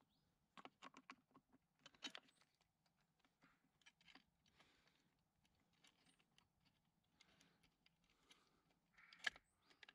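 Faint clicks and small handling noises of plastic and metal parts as a throttle cable end in its rubber boot is fitted onto an outboard engine's carburetor throttle linkage. There is a quick run of clicks in the first two seconds, scattered ones after, and the sharpest click about nine seconds in.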